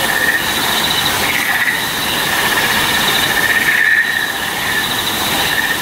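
Rush of small waterfalls pouring into a pond, under a high, pulsing insect-like chirring that swells and fades in waves about once a second.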